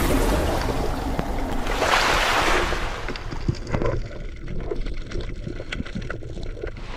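Rushing sea water and wind noise. About three seconds in it gives way to a quieter, muffled underwater sound with many scattered clicks and crackles.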